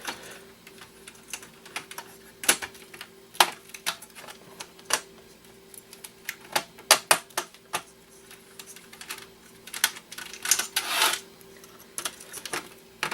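Irregular clicks and taps of hand tools and metal parts as the heatsink is worked off a Nintendo GameCube motherboard, with a short scraping sound about ten and a half seconds in. A faint steady hum runs underneath.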